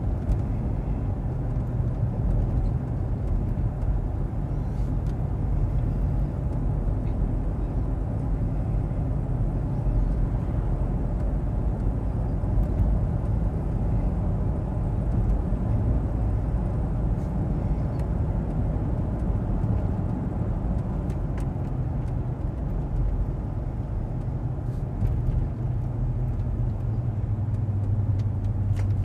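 Steady low rumble of driving noise inside the cabin of a 2016 Cadillac Escalade ESV cruising at about 35 mph.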